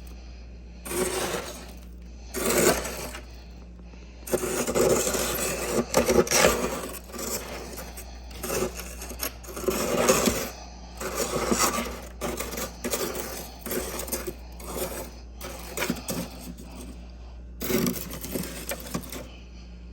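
Freezer frost being bitten and chewed: irregular runs of crisp crunching with brief pauses between mouthfuls.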